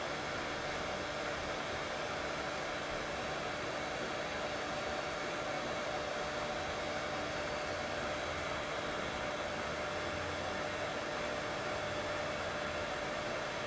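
Steady, unbroken white noise with a few faint steady hum tones in it.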